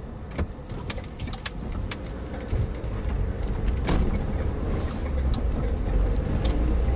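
Suzuki Jimny heard from inside the cabin, crawling along a rough dirt track. A low engine and road rumble runs throughout, with scattered sharp clicks and knocks. The rumble grows louder about halfway through as the car picks up speed again.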